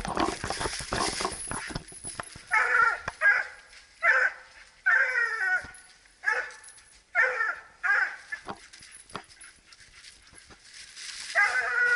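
Bluetick coonhounds barking at the tree, a string of short, loud barks about once a second: the hounds have a raccoon treed. Crackling and rustling of dry leaves in the first couple of seconds.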